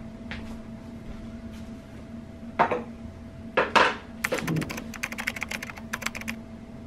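Two knocks, then a quick run of keyboard typing clicks lasting about two seconds, over a steady low electrical hum.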